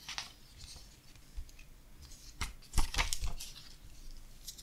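Paper pages of a small instruction booklet being opened and handled: a short rustle at the start, then a few crisp paper rustles and taps between about two and a half and three and a half seconds in.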